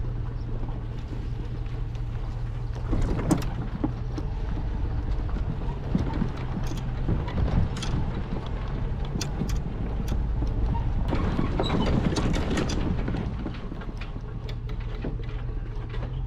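A motor running steadily with a low, even hum, with scattered clicks and knocks over it.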